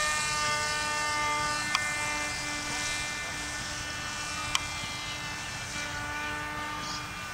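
Radio-controlled model airplane's motor and propeller whining steadily and slowly fading as it flies away, over wind rumbling on the microphone. Two sharp clicks, about two seconds and four and a half seconds in.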